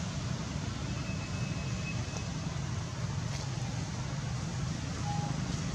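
Steady outdoor background noise: a low rumble under an even hiss, with two faint, brief thin tones, one about a second in and one near the end.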